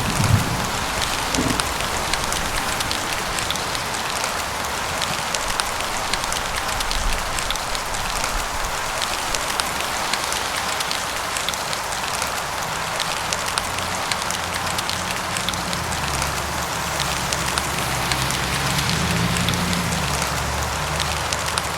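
Steady heavy rain, a dense hiss with countless small drop ticks on hard surfaces. A low rumble comes in over the last few seconds.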